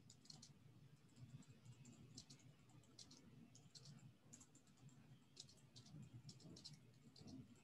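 Faint typing on a computer keyboard: irregular runs of key clicks with short pauses between them.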